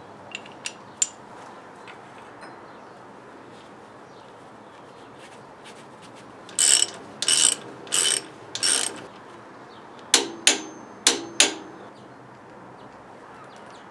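Hand ratchet wrench worked in short strokes on the timing belt tensioner bolt: a few light clicks at the start, then two runs of about four ratcheting strokes each, the second run sharper with a metallic ring.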